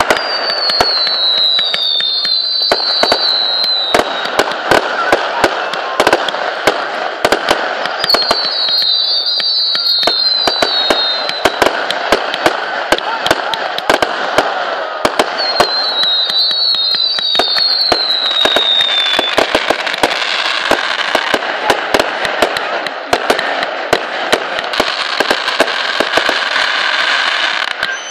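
Fireworks display: a rapid, continuous run of bangs and crackles from bursting shells, with three rounds of overlapping whistles that fall in pitch.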